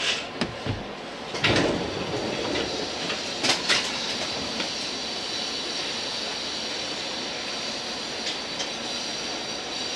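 JR East 205 series electric train running, heard from the driver's cab. There are a few sharp clacks in the first four seconds, then steady wheel-on-rail running noise with a thin high whine.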